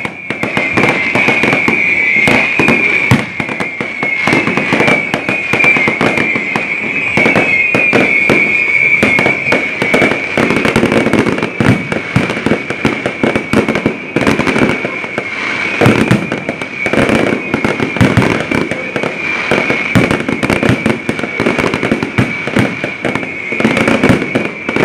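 Large fireworks display going off: a dense, unbroken run of bangs and crackles, with a steady high whine underneath.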